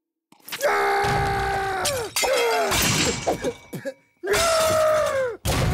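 Cartoon sound effects of china teacups and saucers smashing: loud crashes in several bursts, each with a ringing that falls in pitch as it dies.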